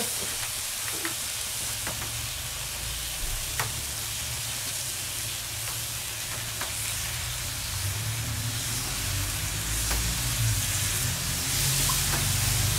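Peach slices frying on a hot steel fire plate, a steady sizzle, as spirits are poured over them from a glass, with a few faint clicks.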